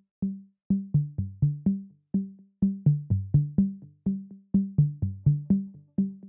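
Background music: a repeating line of short, low notes, each struck and dying away quickly, about four a second.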